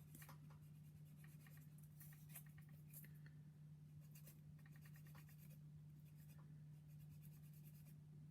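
Faint, irregular scratching strokes of a sanding stick on a plastic model-kit part, over a steady low electrical hum.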